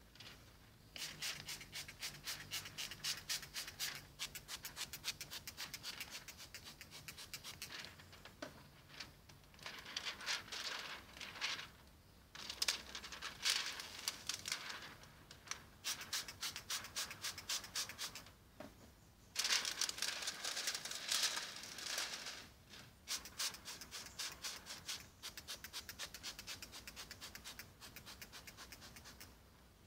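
Rapid back-and-forth rubbing strokes against car window glass during window-tint film fitting. The strokes come in runs of a few seconds with brief pauses.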